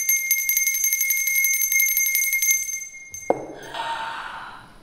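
A bell ringing very rapidly like a mechanical alarm clock: a fast, even, hammered ring that cuts off about three seconds in. A sudden noisy burst follows straight after and fades within about a second.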